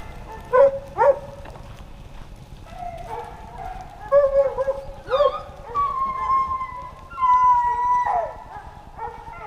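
Hunting hounds baying: two short yelps about half a second in, then a run of drawn-out howling bawls, the longest held steady for about a second before falling in pitch near the end.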